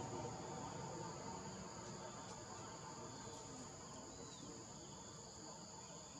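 Steady, high-pitched chorus of forest insects, with a low background hiss of outdoor ambience.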